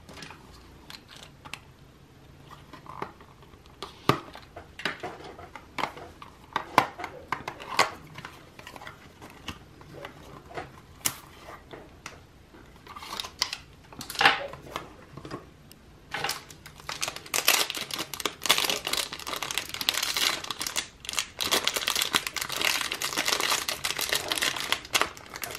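Paper box and packaging handled with scattered taps and rustles, then, from about 17 seconds in, a dense run of crinkling as clear plastic wrap is peeled off a small stamp.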